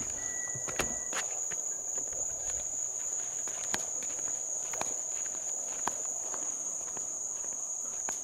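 Night insect chorus, a steady high-pitched trill, with a few scattered clicks and taps over it.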